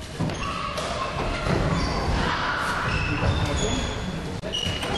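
A football being kicked and thudding off the walls and wooden floor of a squash court, with short squeaks of shoes on the floor and players' voices echoing around the court.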